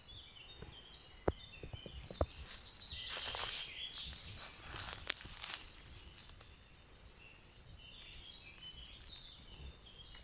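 Woodland birds chirping and singing, with rustling in dry leaf litter for a couple of seconds midway and a few sharp snaps or clicks.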